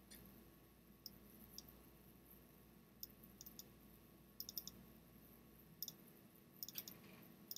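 Faint computer mouse clicks, some in quick pairs like double-clicks, spaced about a second apart over near silence.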